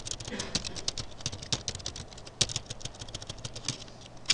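Typing on a computer keyboard: quick, irregular keystrokes, with a couple of louder key strikes about halfway through and at the end.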